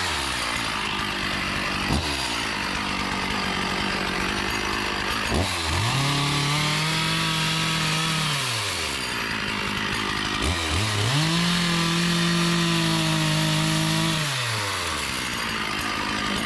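Chainsaw engine idling, then revved up twice to full throttle, each time held steady for about three seconds before dropping back to idle.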